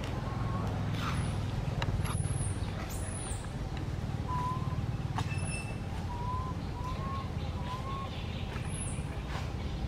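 Short, thin whistled calls repeated at irregular intervals, with quick high chirps in between, over a steady low rumble.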